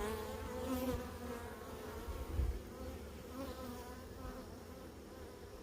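Honey bees buzzing around an open hive, a steady droning hum whose pitch wavers slightly and which eases off a little.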